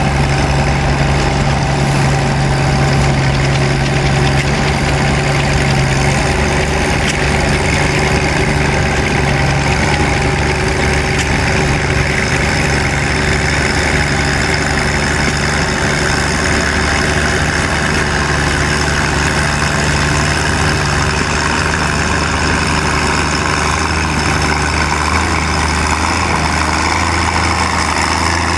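Antique farm tractor's engine running steadily under load while pulling a weight-transfer sled.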